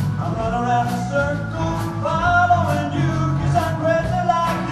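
Live blues band playing a jazzy original: electric guitar, bass and drums keeping a steady beat, with harmonica and a man singing over it.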